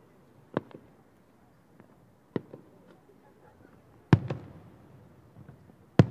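Aerial firework shells bursting about a kilometre away: four sharp booms roughly every second and a half to two seconds, the first three each followed closely by a second bang, the last two the loudest with a longer fading rumble.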